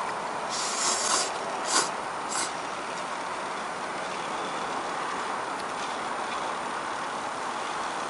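Cup ramen noodles slurped three times in quick succession, one longer slurp then two short ones, within the first few seconds. Under them a steady hiss from small electric fans runs throughout.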